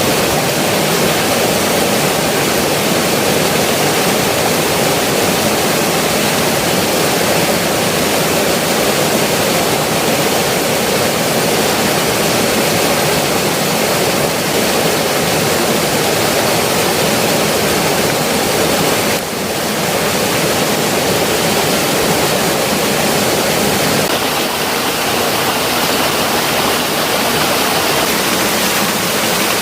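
Rushing water from a forest stream or waterfall: a loud, steady rush with one brief dip in level about two-thirds of the way through.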